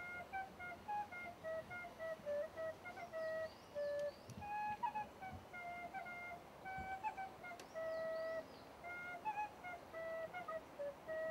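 A wooden end-blown flute playing a slow melody of short notes and longer held ones.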